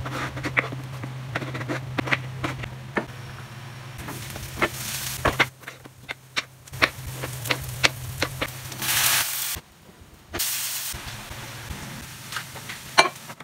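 A kitchen knife chopping vegetables on a wooden cutting board: a run of sharp, irregular taps over a steady low hum. This is followed by two short loud stretches of hissing sizzle from chopped tomatoes and vegetables frying in a pan over a gas burner.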